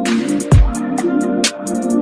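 Electronic background music with a heavy beat: deep bass-drum hits that drop in pitch, crisp hi-hats and a sustained synth pad.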